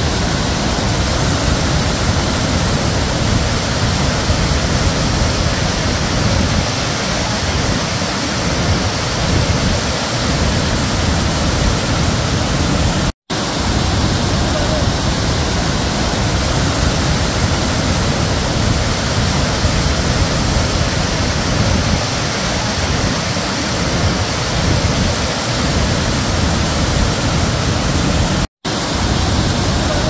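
Large glacier-meltwater waterfall pouring down rocky tiers: a steady, loud rush of water. It cuts out to silence for an instant twice, about halfway through and near the end.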